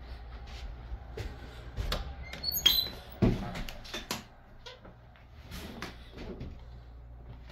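A door being handled: clicks and knocks, a brief squeak at about two and a half seconds in, and a heavy thump just after. Scattered footsteps and phone-handling knocks continue over a low steady hum.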